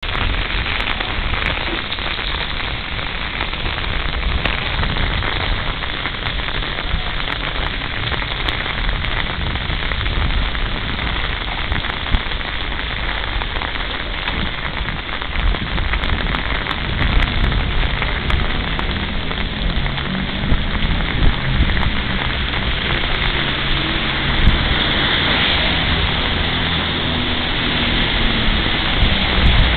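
Steady rain falling on a wet street and on an umbrella held overhead, with a low rumble underneath.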